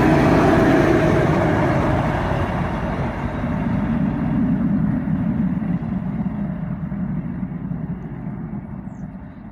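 Two-section 3TE10MK diesel locomotive with D49-family diesel engines, running light past at speed. Its engine rumble and wheel-on-rail noise fade steadily as it draws away.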